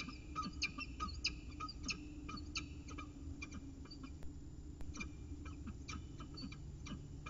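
Birds chirping in short, high, repeated notes, about two or three a second and irregular, over a faint steady low hum.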